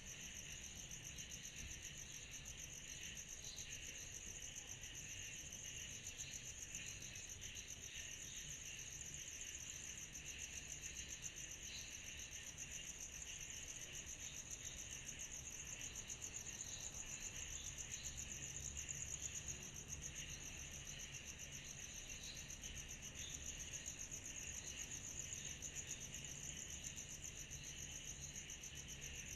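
Steady summer-night insect chorus: one continuous, high, very rapidly pulsing trill, with a lower layer of scattered chirps beneath it.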